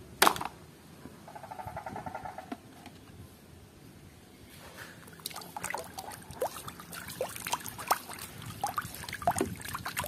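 Plastic toys knocking together once as one is picked out of a pile. About halfway in, water sloshing and splashing in a tub as a hand swishes a plastic toy zebra through it, with irregular small splashes and drips.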